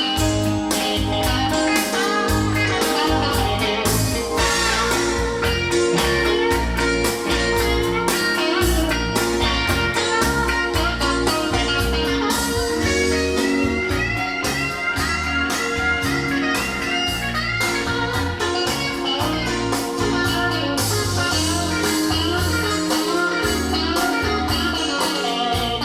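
Blues band recording: guitar played over bass and a steady drum beat, with no singing.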